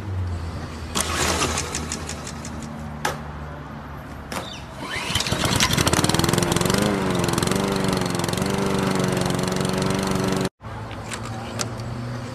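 Small lawn mower engine starting: after a few short sharp sounds it catches about five seconds in, revs up and runs with a wobbling pitch, then cuts off suddenly near the end.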